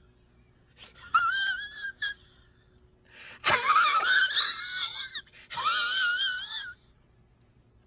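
A very high-pitched, wavering wheezing cry in three bursts: a short one about a second in, a louder, longer one from about three and a half seconds, and another around six seconds.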